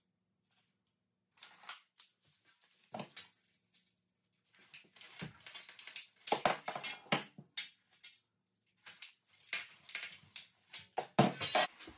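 Intermittent clicks, knocks and rattles of plumbing fittings and tools being handled during work on a water softener installation, busiest in the second half.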